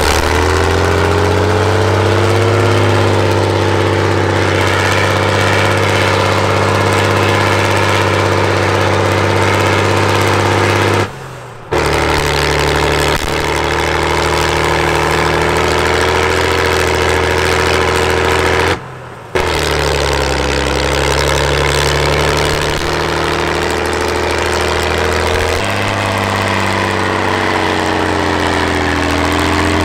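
Big diesel engine of an 8x8 trial truck running hard under load as the truck climbs a steep dirt slope, its pitch rising and falling a little with the throttle. The sound drops out briefly twice, about 11 and 19 seconds in.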